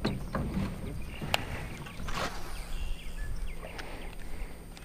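Baitcasting rod and reel being handled in a small boat: scattered clicks, one sharp click about a second and a half in, and a brief swish a little after two seconds. A faint steady hum follows the swish.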